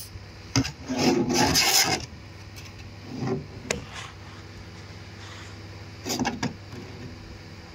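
Several short rubbing and scraping noises, the loudest lasting about a second near the start and another pair about six seconds in, over a steady low hum.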